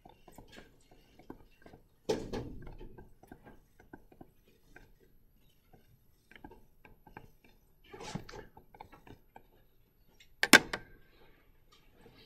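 Small taps and scratches of a pen or stylus writing, with a louder knock about two seconds in and a sharper, louder knock near the end.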